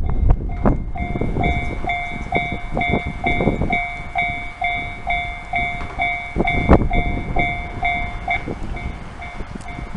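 Japanese level crossing's electronic warning bell ringing in an even pulse, a little over two strikes a second, growing faint near the end. Under it a train passes through the crossing with a low rumble and repeated clacks of wheels over the rail joints.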